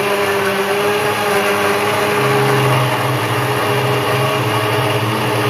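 Electric jug blender running steadily at speed, grinding sliced apples with water and sugar into juice.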